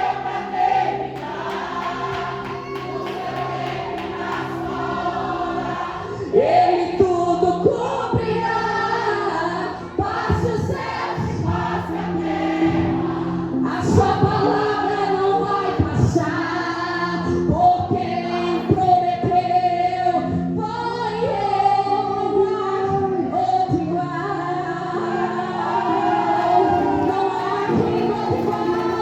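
Choir singing a gospel praise song over instrumental accompaniment; about six seconds in the music gets louder and a beat comes in.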